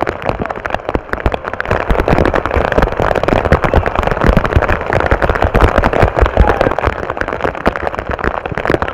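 Heavy rain striking close to the microphone: a steady, dense crackle of many small hits.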